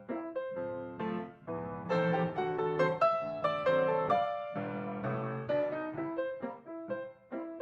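Background piano music: a run of single notes, several a second, each struck and fading.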